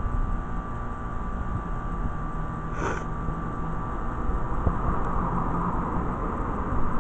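Bryant heat pump outdoor unit running in its defrost cycle with a steady low hum. About three seconds in comes a brief hiss, and from about halfway a rushing noise grows louder.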